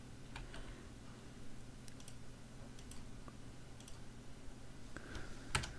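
Soft clicks of a computer mouse and keyboard: a few separate clicks, most in quick pairs, with louder clicks near the end, over a faint steady low hum.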